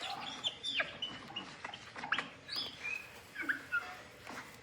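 Sunglasses being handled close to the microphone while they are put on someone: a string of short squeaks and clicks.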